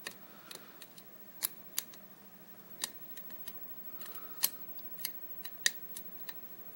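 A lock pick working the pins of a euro cylinder lock with the tension bar in place: about a dozen scattered, sharp metallic clicks, irregularly spaced, two of them louder than the rest.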